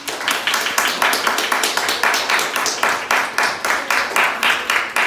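Audience applauding, with many claps falling into a fairly even rhythm of about four to five a second.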